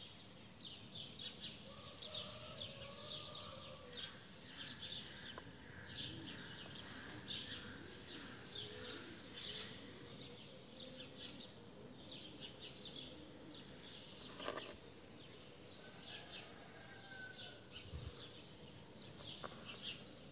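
Small birds chirping outdoors, many short high notes repeated throughout, over a faint steady background hum, with a single knock about two-thirds of the way through.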